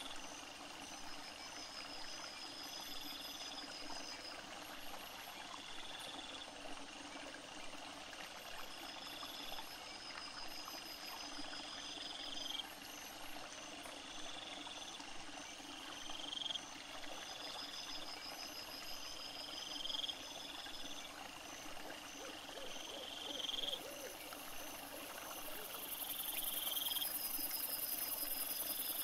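Night insect chorus of crickets and bush crickets. One short call repeats every couple of seconds, a higher trill comes in about every eight seconds, and a loud, very high, steady buzz takes over near the end.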